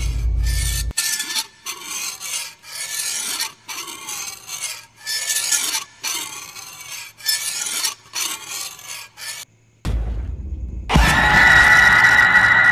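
Horror sound design: a run of irregular rasping, scratching strokes, one or two a second. After a brief hush a low rumble rises, and about eleven seconds in a loud, sustained ringing sting comes in.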